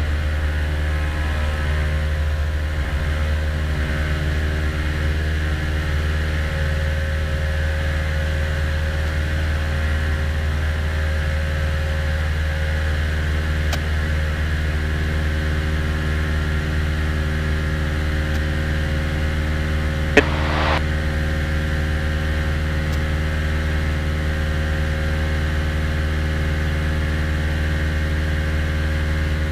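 Cessna 172's engine and propeller running steadily at full power in the takeoff climb, heard inside the cabin. A single sharp click about twenty seconds in.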